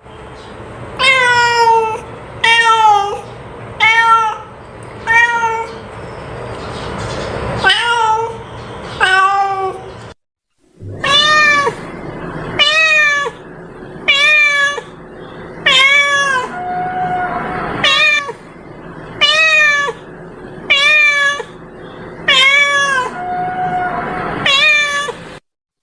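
A cat meowing over and over, short separate meows about every second and a half, with a brief pause about ten seconds in. It is a lure sound for calling cats.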